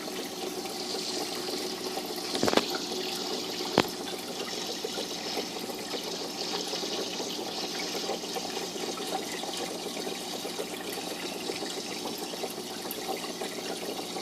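Steady trickling of water circulating in a running fish tank, with two brief knocks about two and a half and four seconds in.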